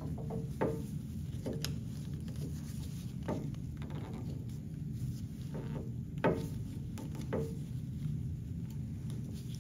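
A few scattered light clicks and taps from handling the lift cylinder's metal piston and a small pick tool while a seal is worked onto it, the loudest about six seconds in, over a steady low hum.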